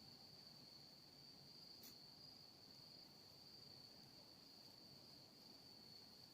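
Faint, steady, high-pitched insect trill that never breaks, with a single soft click about two seconds in.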